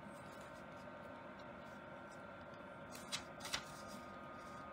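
Mini personal air cooler fan running steadily, with a sticky note rustling in its airflow; two short sharp paper crackles a little past three seconds in.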